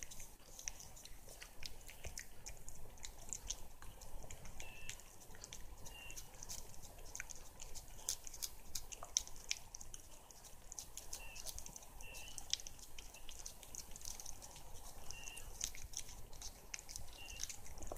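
A cat licking and eating a lickable paste treat from a squeeze tube: quick, irregular, wet licking and mouth clicks.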